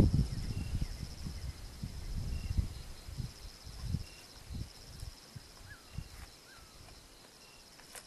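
Insects trilling steadily in a high, fast-pulsing chorus, with faint short high chirps repeating every second or so. Irregular low thumps and rumbles sound over the first half, with a sharp knock right at the start.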